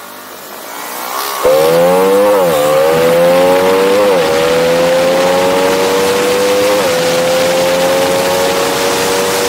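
Honda RS150's single-cylinder engine pulling hard at full throttle. The engine note comes in suddenly about a second and a half in, over wind rush. Its pitch climbs steadily and dips briefly at each of three upshifts.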